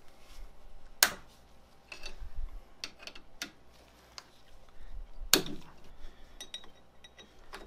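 Metal clicks and clinks of a long hex key working bolts through the steel end plate of a CNC mill table: two sharp, loud clicks about a second in and about five and a half seconds in, with lighter ticks between.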